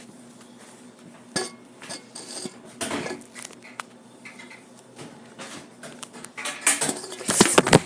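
Dishes and kitchenware knocking and clattering as they are handled: a few scattered knocks, then a loud run of clatter near the end.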